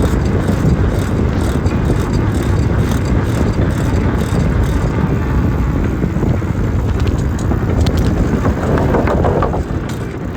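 Steady, loud wind rumble buffeting the onboard phone's microphone while it moves along the trail, with the low rumble of the ride beneath it.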